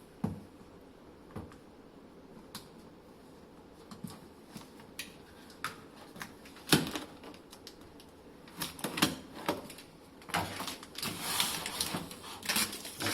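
A cardboard box being opened by hand: scattered clicks, taps and scrapes of cardboard and packing, sparse at first with a sharp knock about seven seconds in, then busier handling over the last few seconds.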